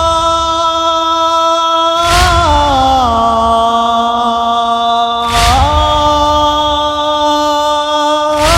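Wordless vocal chorus of a Shia latmiyya lament, holding long notes that step to a new pitch every few seconds. A heavy thump lands about every three seconds, the beat of mourners striking their chests.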